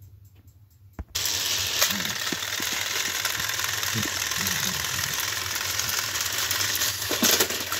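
Battery-powered toy train engines' motors and gears whirring and clattering on plastic track, switched on with a click about a second in and then running steadily while straining nose to nose against each other.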